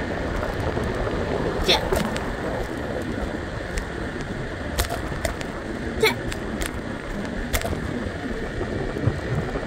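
Wind rushing over the microphone and rolling noise from a moving scooter, with a few sharp clicks or knocks, the loudest about two and six seconds in.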